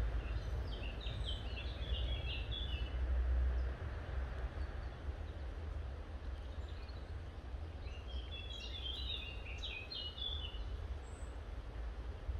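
Songbird singing in two bursts of quick, high chirps, one about a second in and another around nine seconds in, over a steady low rumble.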